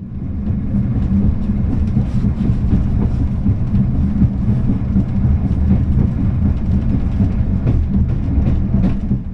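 Running noise of a Talgo 250 'Afrosiyob' high-speed train at speed, heard inside the carriage: a steady low rumble of wheels on rails with light clicks and rattles.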